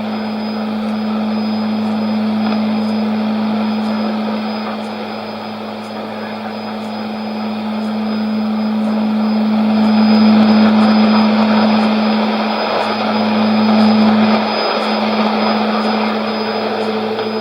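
Shortwave test transmission on 5990 kHz from the Nauen transmitter, heard on a shortwave receiver: a steady low humming tone over a rushing hiss of static that swells and dips. In the last few seconds the tone breaks off briefly a few times.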